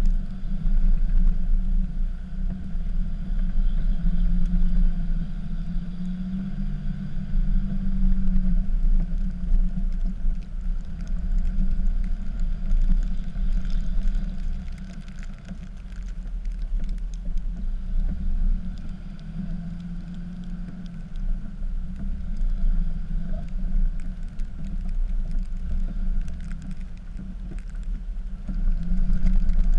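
Dodge pickup's Cummins inline-six turbo-diesel running under load while plowing snow, a steady low engine note that swells and eases every few seconds.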